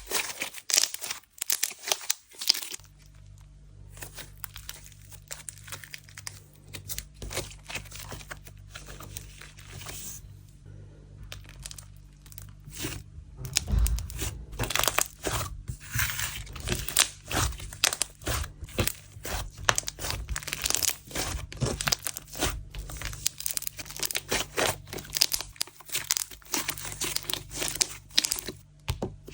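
Hands squishing, stretching and pulling apart a jelly cream slime, making dense sticky crackling, popping and tearing sounds. The sounds are sparser for a while and busier after about twelve seconds. A faint steady low hum comes in about three seconds in.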